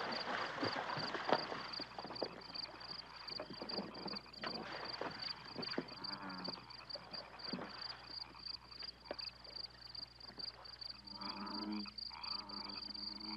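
A steady high-pitched chirping trill of a cricket, pulsing several times a second without a break. Splashing from people wading through shallow water in the first half, and a man's low groans near the end.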